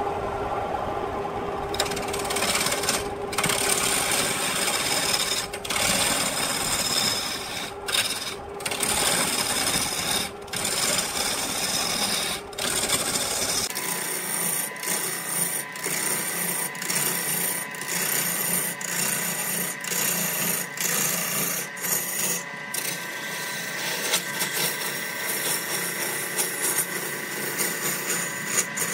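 Turning gouge cutting into a large wooden log spinning on a wood lathe: a continuous rough, hissing scrape of wood being shaved away, broken by brief gaps when the tool eases off. The sound changes character about halfway through, losing its deepest part.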